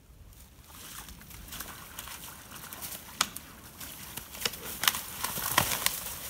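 Two whitetail bucks with locked antlers thrashing on the ground: a crackling rustle of leaves and brush with sharp clicks and snaps, growing louder after the first second.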